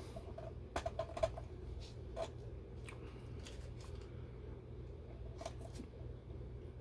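Faint, scattered small clicks and scrapes of a screwdriver turning a small screw into a clock's back cover, with a cluster of clicks about a second in, over a steady low hum.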